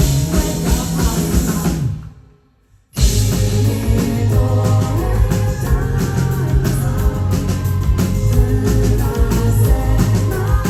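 Rock band playing live with drums, bass and guitar. About two seconds in the music fades to almost nothing for under a second, then the full band comes back in suddenly.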